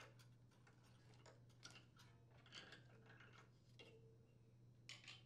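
Near silence with a faint low hum and scattered faint clicks and rustles: hands working the plastic carburetor spacer (insulator) of a snowblower engine off its metal mounting studs.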